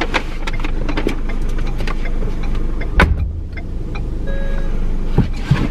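A person climbing out of a car's driver's seat, with clicks and rustling, then the car door shutting with a thud about three seconds in. A low steady hum from the car runs underneath, and a short electronic tone sounds soon after the door closes.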